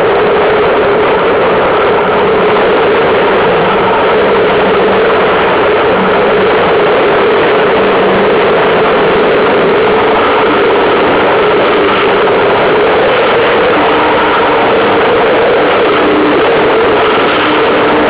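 Loud, steady wind noise buffeting the microphone of a camera on the foredeck of a Solo sailing dinghy going fast in strong wind, mixed with the rush of water and spray along the hull.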